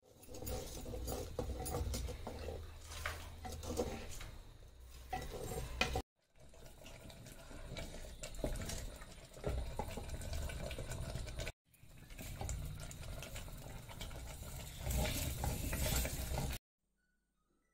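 Wooden spoon stirring and scraping a simmering liquid in a terracotta clay pot, with small knocks against the pot and bubbling. The sound breaks off twice briefly, about 6 and 11.5 seconds in, and stops about a second before the end.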